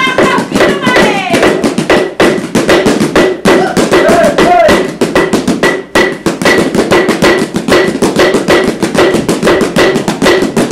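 Maori poi dance: voices singing while the swung poi balls strike the performers' hands and bodies in a fast, even beat of taps.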